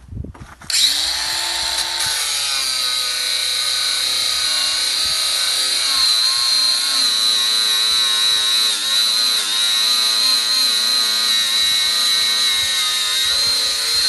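Worcraft CAG-S20Li-125 cordless angle grinder with a 125 mm cutting disc spinning up about a second in and cutting through a steel leg: a loud, steady high whine with small dips in pitch as the disc is loaded. It winds down at the very end.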